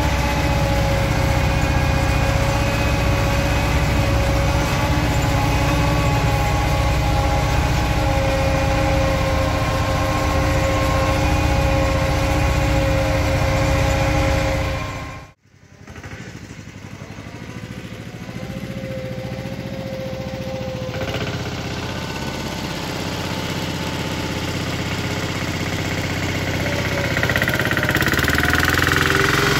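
A patpat's single-cylinder diesel engine runs steadily under way, heard from its open cab. It cuts off abruptly about halfway, then comes back heard from outside, growing louder as the patpat approaches.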